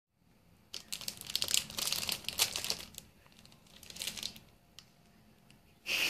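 Clear plastic bag around a bread bun crinkling in bursts as it is handled, with a short, louder sound right at the end.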